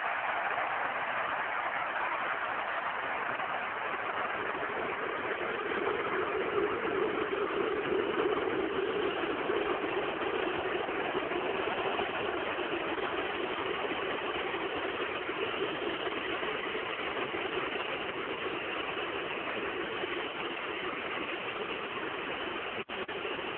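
Football stadium crowd noise: a steady roar from the stands that swells a little around a third of the way in.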